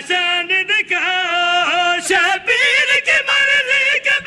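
A man chanting qasida verse in a melodic, drawn-out style with long wavering held notes, amplified through a microphone.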